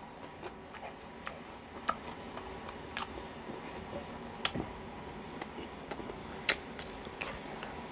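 Close-miked eating: irregular sharp mouth clicks and smacks from chewing, with a metal spoon scooping rice from a ceramic bowl, over a faint steady hum.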